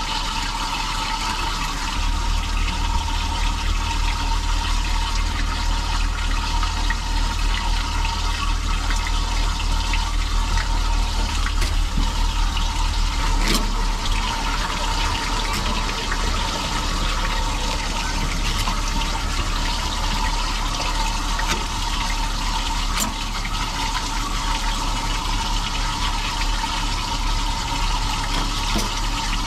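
Steady rush of running water, unbroken throughout, with a low rumble underneath that grows stronger about two seconds in.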